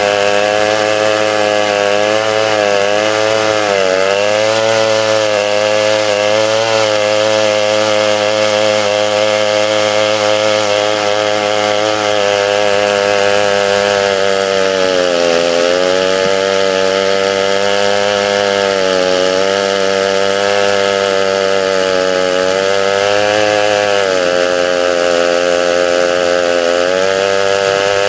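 Large Stihl two-stroke chainsaw running at high throttle while ripping a log in a chainsaw mill. Its pitch sags and recovers several times as the cut loads the engine.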